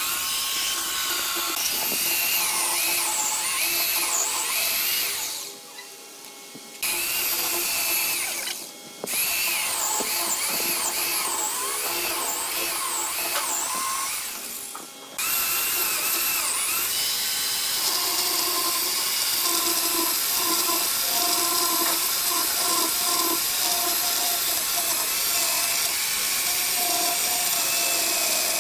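Corded electric chainsaw cutting through a thick wooden slab along a curved line. Its high whine wavers with the load, stops briefly three times in the first half, then runs steadily.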